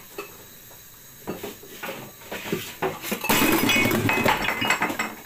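Kitchenware falling and breaking: a run of clattering knocks builds about three seconds in into a loud crash of breaking pieces, with ringing chinks as they scatter, lasting nearly two seconds.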